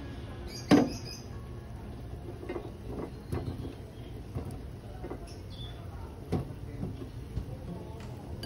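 Pot of broth simmering, with scattered soft pops of bubbles over a low steady hum, and one sharp knock a little under a second in.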